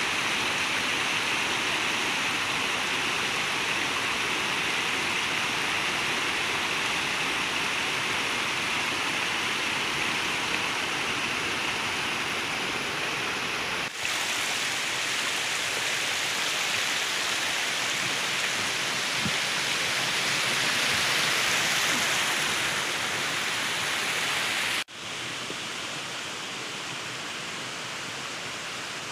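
Steady rush of a shallow forest stream running over rocks and small cascades. It cuts off abruptly twice, about 14 and 25 seconds in, and is quieter for the last few seconds.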